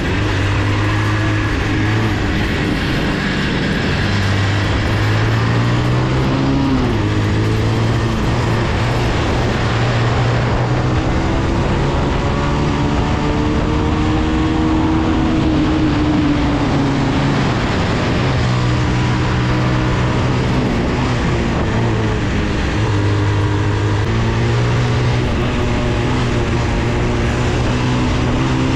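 Bajaj Pulsar 180's single-cylinder four-stroke engine running on the move, its pitch rising and falling again and again with throttle and gear changes, with wind noise on the microphone.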